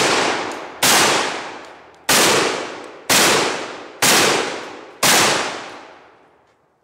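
12-gauge shotgun firing slugs: six shots about a second apart, each one ringing out and dying away before the next.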